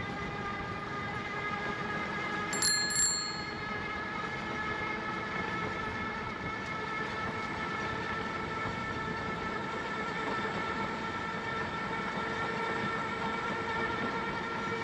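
A bicycle bell rings twice in quick succession, two short high dings about three seconds in, over a steady humming drone whose pitch drifts slightly.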